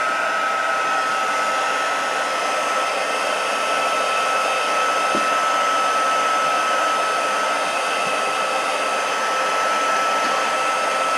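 Mini handheld heat gun running steadily: a blower hiss with a steady high whine, heating heat-shrink tubing over a soldered wire splice.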